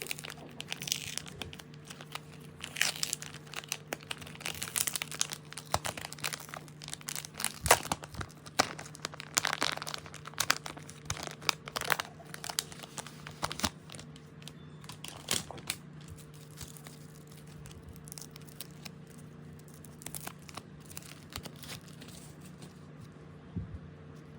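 Packaging being handled and crinkled in irregular crackles, thick for most of the first two-thirds and thinning out near the end, over a steady low electrical hum.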